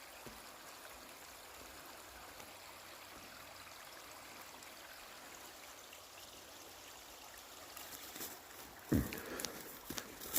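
Water trickling and running steadily through a beaver dam. Near the end come a few knocks and rustles, the loudest a thump about nine seconds in.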